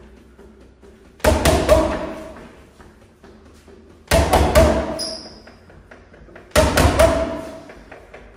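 Boxing gloves striking a free-standing spring-necked cobra reflex bag in three quick jab-cross-hook combinations, each a flurry of about three hits with a ringing tone that fades after it. A brief high squeak comes shortly after the second flurry.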